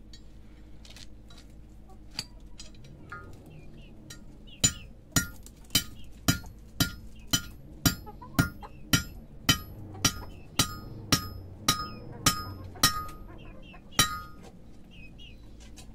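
Hammer striking a steel rod on a steel plate: a steady series of sharp, ringing metal-on-metal blows, about two a second, starting about four and a half seconds in and stopping shortly before the end.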